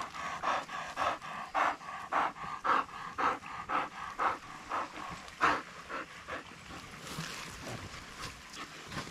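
Wire-haired pointer panting hard and rhythmically, about three breaths a second, trailing off about six and a half seconds in.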